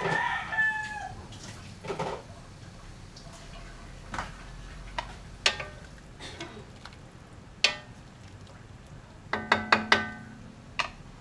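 Sharp ringing clinks of a utensil striking a metal wok as the food in it is stirred, single taps spaced a couple of seconds apart and then a quick run of four or five near the end. A short call with wavering pitch sounds right at the start.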